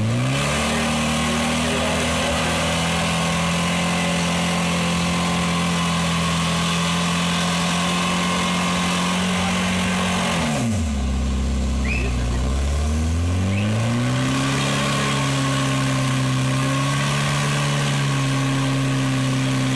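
Off-road trial vehicle's engine revving up and held at high revs for about ten seconds, dropping back to idle about ten seconds in, then revving up again and held high until it drops off right at the end.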